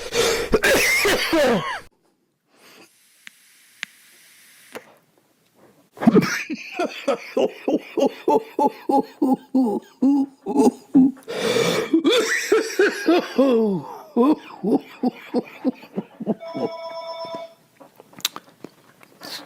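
A man coughing from inhaled vape vapour: a loud burst of coughing, then a long fit of hacking coughs, about three or four a second, lasting some eight seconds. A faint hiss comes between them, and a short electronic beep follows near the end.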